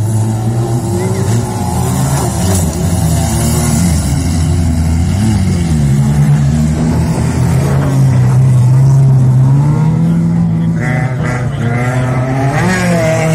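Several banger racing cars' engines running hard together, loud and continuous, their pitch rising and falling as the drivers accelerate and lift.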